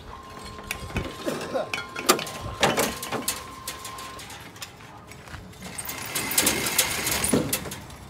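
Irregular clicks and knocks of bricklaying work, bricks and tools being handled, with a thin steady high tone through the first half and a denser clatter near the end.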